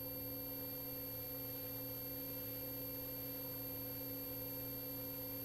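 Steady electrical hum made of a few fixed tones, low and high, unchanging throughout, with no other sound.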